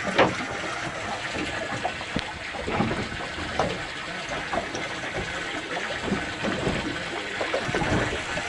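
Sea water slapping and sloshing against a fiberglass boat hull, irregular, with a sharp louder splash right at the start.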